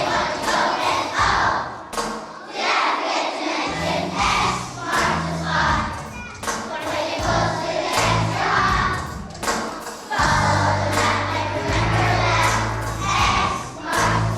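Music: a children's choir singing a song over instrumental accompaniment with sustained bass notes.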